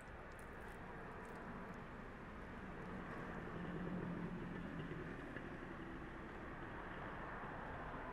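Steady low rumble of vehicle traffic and engine noise, swelling about four seconds in and easing off again.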